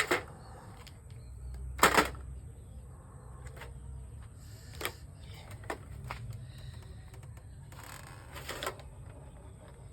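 Scattered clicks and knocks of objects being handled, the loudest a double knock about two seconds in, with a short rustling stretch near the end.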